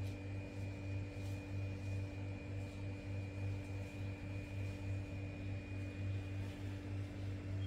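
Steady machine hum that pulses in loudness about twice a second, with a faint high-pitched whine above it.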